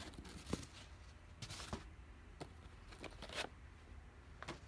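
Handling noises from a hard plastic gun case and its foam inserts: a handful of short knocks and rustling scrapes, spread out with gaps between them.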